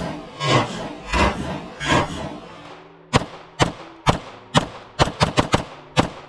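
Rapid fire from a 9mm Bear Creek Arsenal Grizzly 101 pistol, shot after shot: a few evenly spaced shots, a short pause, then about ten quicker shots near the end as the magazine is emptied.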